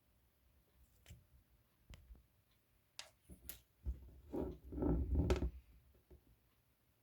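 Hands playing with marbled macaron slime: a few scattered soft clicks and pops, then a louder run of squishing and popping from about four to five and a half seconds in.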